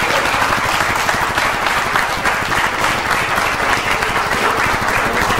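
A crowd applauding: dense, steady hand-clapping from many people.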